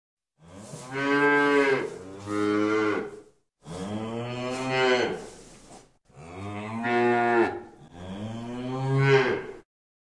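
A cow mooing: about five moos in a row, each one to two seconds long with short breaks between them.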